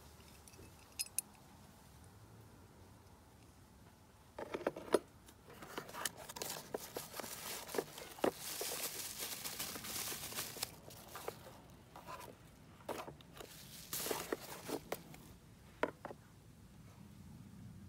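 Bubble wrap and a cardboard box crinkling and rustling as a new scooter fuel pump is unwrapped, in a long run of irregular crackles and sharp snaps. Two small clicks come about a second in, before the unwrapping starts.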